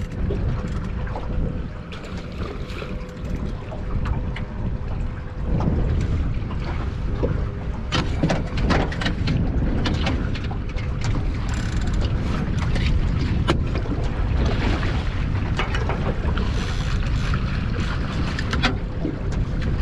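Wind buffeting the microphone on an open boat, a heavy low rumble, with scattered sharp clicks and knocks from about eight seconds in.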